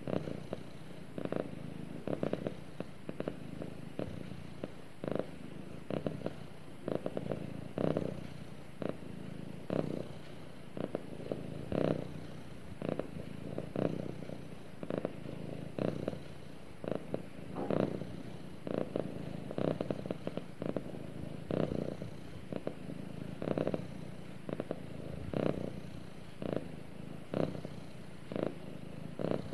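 Domestic cat purring continuously while being stroked on the head. The purr swells in regular pulses about once a second.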